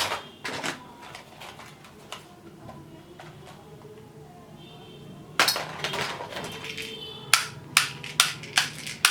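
Plastic toy guns being handled: a clatter of plastic clacks about five and a half seconds in, then a run of five sharp clicks about 0.4 s apart near the end.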